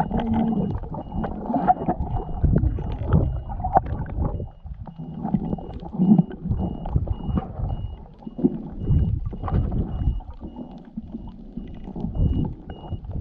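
Muffled underwater sound picked up by a camera held just below the surface: water sloshing and rushing past in irregular low surges as the freediver swims.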